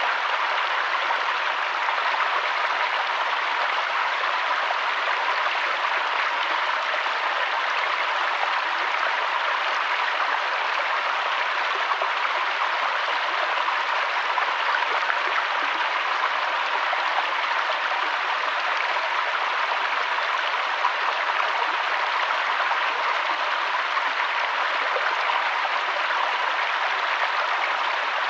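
Water flowing in a river or stream: a steady, even rush with no change.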